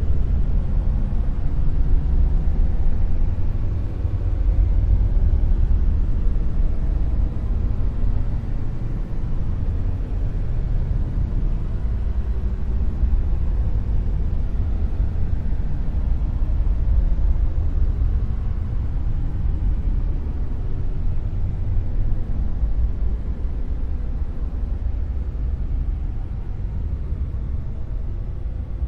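Dark noise: a steady, deep noise with most of its weight in the low bass and little treble, swelling and easing only slightly in level.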